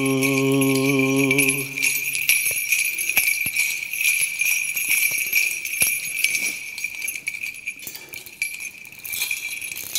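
Small bells on a swinging censer jingling, with its chains clinking. The jingling fades gradually toward the end. A held sung note, the last of the hymn, dies away about two seconds in.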